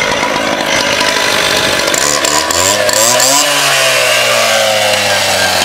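Gas-powered two-stroke cut-off saw with an abrasive wheel cutting through a metal light pole: a loud, steady grinding screech over the running engine. About two seconds in, the engine note climbs, then drops back and holds steady.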